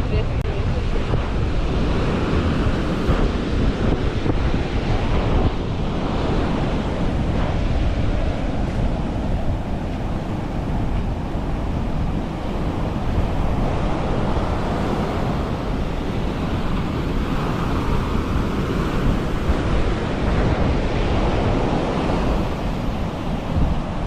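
Ocean surf breaking steadily on a sandy beach, with wind buffeting the microphone.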